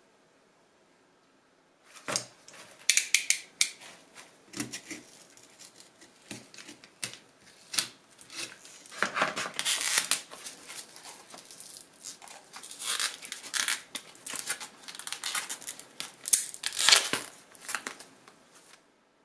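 Cardboard and tape being peeled and torn away by hand from a cured epoxy resin block cast with colored pencils, demolding it: irregular ripping and crackling, starting about two seconds in.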